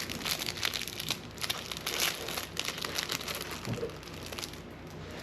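Dense crinkling and crackling of something being handled, dying away near the end.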